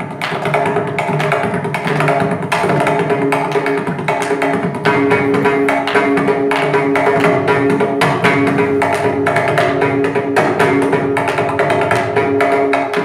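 Mridangam solo (layavinyasam) in misra chapu tala: rapid, dense strokes on both heads, with recurring ringing pitched strokes from the tuned right head.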